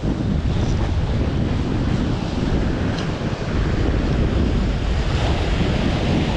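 Wind buffeting the microphone in a steady low rumble over the wash of the sea along a jetty.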